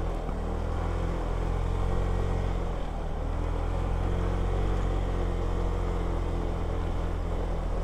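Motor vehicle engine running at a steady low drone while driving uphill, with no change in pitch or loudness.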